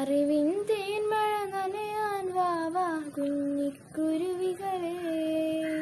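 A young girl singing a slow melody solo and unaccompanied, in long held notes that slide between pitches, with a brief pause for breath about two thirds of the way through.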